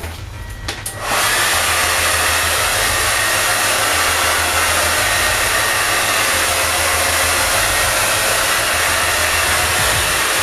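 Hand-held hair dryer switched on about a second in, then blowing with a steady, even whoosh. It is drying gel worked into mohawk spikes so they set hard.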